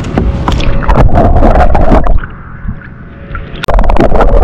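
Water sloshing and gurgling around a camera as it is dipped into a lake and held underwater, with a heavy low rumble and many small clicks. It goes quieter for about a second and a half in the middle, then loud again.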